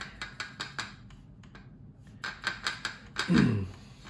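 A paintbrush clicking and tapping against the metal well of a paint palette while a wash is mixed, in quick clusters of light clicks. A short vocal sound that falls in pitch, about three seconds in, is the loudest moment.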